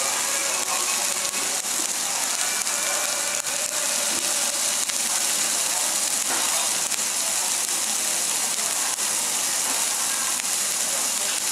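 Steak and vegetables sizzling on a hot cast-iron serving plate: a steady hiss with scattered faint crackles.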